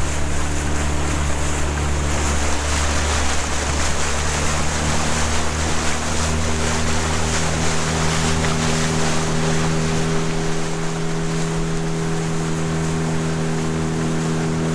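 Mariner 9.9 hp outboard motor running at speed under a small open boat, a steady engine note whose pitch shifts a little about halfway through. Under it are the rush of water along the hull and wake, and wind buffeting the microphone.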